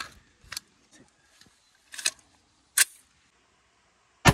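A few sharp metallic clicks as a rifle is handled and readied, then a single loud gunshot near the end, its echo trailing off.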